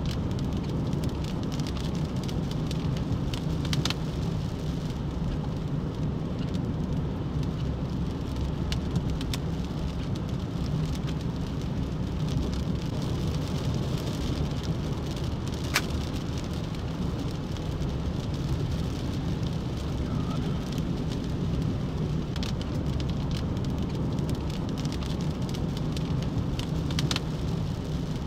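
Rain falling, with scattered sharp raindrop hits over a steady low background noise.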